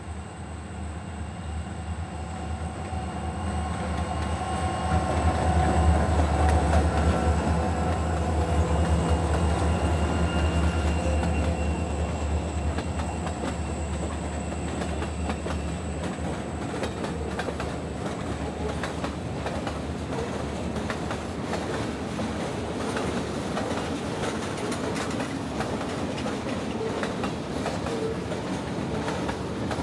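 Two EMD SD40 diesel locomotives running past, their engine hum swelling to its loudest about six seconds in and then fading. After that the freight cars roll by, wheels clicking steadily over the rail joints.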